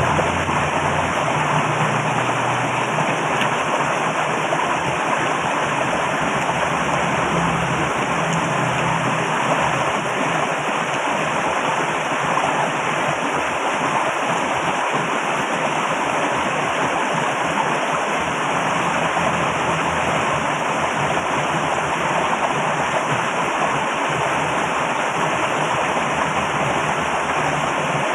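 Loud, steady rush of flowing water, with a low hum under it for the first couple of seconds.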